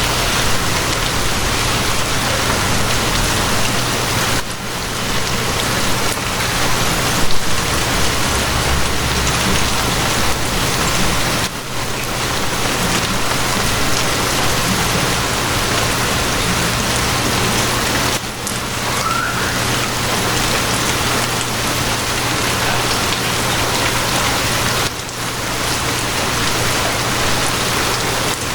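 Steady heavy rain, a dense even patter, over a low steady hum. The rain dips briefly about every seven seconds, and there is one short louder knock about seven seconds in.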